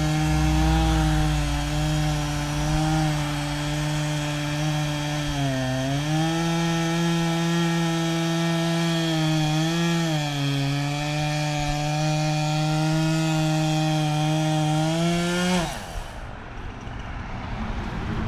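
Gas chainsaw running at high revs under load as it cuts the felling notch into a tree trunk, its pitch dipping briefly twice as the bar bites. Near the end the throttle is released and the engine note falls away sharply.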